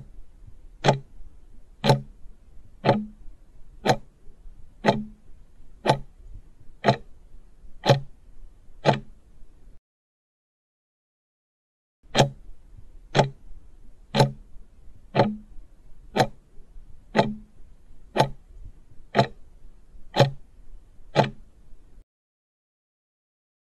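Clock-tick countdown sound effect, one tick a second. A run of about ten ticks stops for a silent gap of about two seconds, then another run of ten ticks starts, and it stops again shortly before the end.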